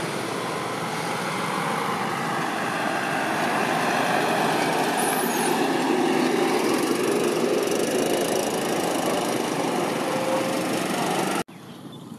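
Loud, steady engine-like machine noise that cuts off abruptly near the end, leaving a much quieter background.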